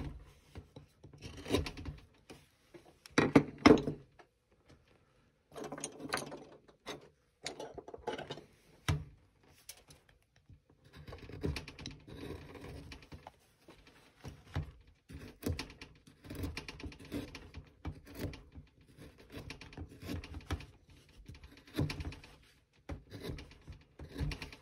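Hand carving tool paring chips from a basswood carving in short, uneven strokes of scraping and cutting, with brief pauses between cuts; the wood is tough going and resists the blade. The loudest strokes come about three to four seconds in.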